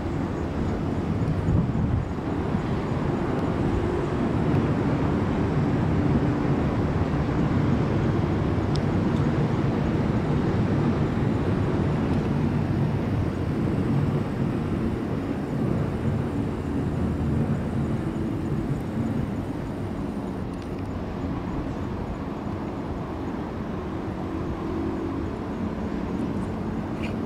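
Steady low engine rumble of river and road traffic, with faint engine tones wavering through it.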